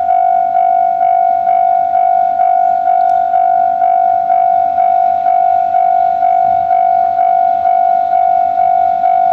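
Japanese level-crossing warning bell ringing, an electronic ding at one steady pitch repeating about twice a second, the signal that a train is approaching.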